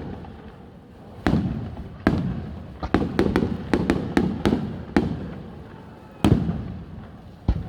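Fireworks display: aerial shells bursting in sharp bangs, each followed by a rolling echo. A few spaced bursts give way to a quick run of cracks in the middle, then single bangs toward the end.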